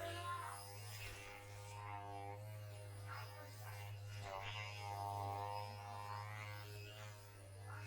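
Background music: a low steady drone with a slow melody of long held notes over it.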